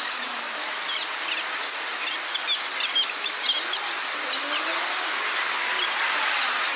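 Small birds chirping in the trees, many short high chirps scattered through the first few seconds, over the steady hum of an outdoor city park with faint distant voices.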